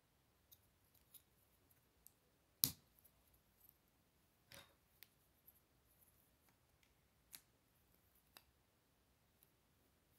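Plastic Lego bricks clicking and snapping together as they are pressed on by hand: a scattering of faint clicks, the loudest and sharpest about two and a half seconds in.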